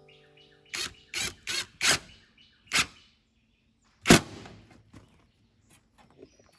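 A series of short, sharp knocks: four close together about a second in, a fifth near the three-second mark, and a louder single bang about four seconds in, followed by a few faint ticks.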